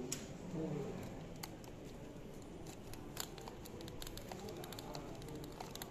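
Faint, scattered clicks and light scraping from a wooden magic-lantern slide being handled and its sliding glass panel moved, a few sharper clicks standing out.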